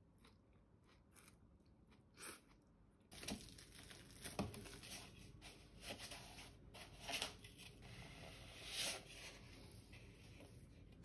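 Faint for the first three seconds, then from about three seconds in, rustling and scraping from mixing cake batter: a plastic bag crinkling as it is squeezed into a glass bowl, and a spatula stirring and scraping the mixture, with irregular strokes every second or so.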